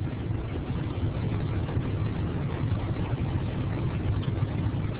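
Steady low rumble of background noise on an open microphone line, with no speech.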